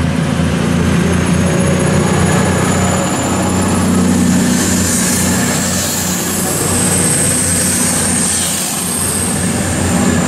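CrossCountry Class 220 Voyager diesel-electric multiple unit under power as it pulls out of the platform: a steady drone from its underfloor diesel engines with a high whine that rises slightly about halfway through and then holds.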